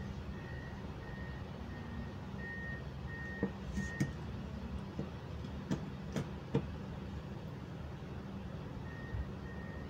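A vehicle's reversing alarm beeping at about one and a half beeps a second over a low steady engine hum; the beeping stops about four seconds in and starts again near the end. Several sharp metal clicks in the middle are the loudest sounds, as metal angle grinder parts are handled on the bench.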